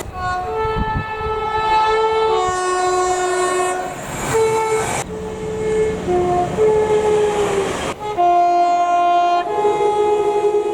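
Train horn played as a tune: a run of long, loud horn notes that switch back and forth between a high and a low tone, with a sharp click about eight seconds in.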